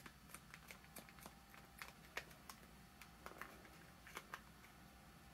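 Near silence with faint, irregular small clicks, about a dozen over a few seconds: the buttons of a VCR remote control being pressed.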